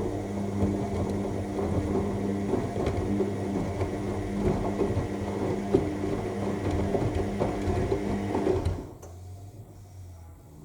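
AEG 7000 Series L7FE7461BI front-loading washing machine in its Cottons 60 main wash: the drum motor hums steadily as the drum turns, with the laundry tumbling inside in a run of small clicks and knocks. The drum stops about nine seconds in, leaving a fainter hum.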